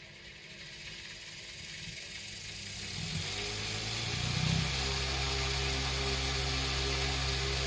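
Homemade propeller fan driven by rubber belts from three small electric motors, spinning up: a whir and rush of air growing louder over the first four or five seconds, then settling into a steady hum.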